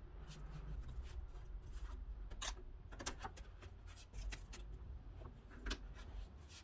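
Green masking tape pulled and torn from the roll, then pressed onto a pine shelf board: a few faint, short ripping and rubbing noises over a low steady hum.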